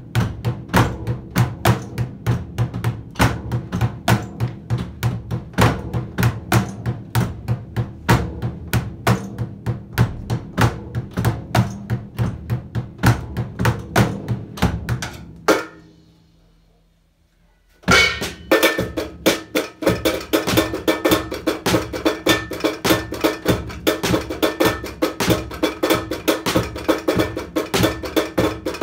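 Drum kit played in a steady beat, snare and bass drum strikes about four a second with cymbal hits. About 15 seconds in the playing stops and the ring dies away, and a couple of seconds later the beat starts again.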